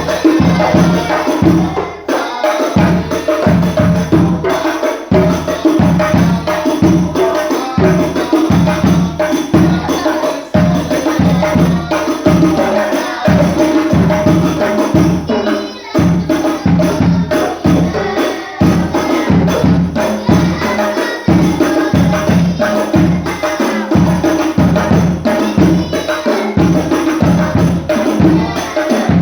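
Hadroh ensemble: rebana frame drums beating a steady, driving rhythm under group singing of sholawat.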